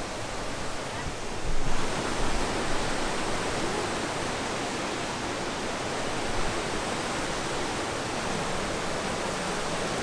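Steady rushing roar of the Sipiso-Piso waterfall pouring down from high above, a wide even noise that gets louder about two seconds in and then holds.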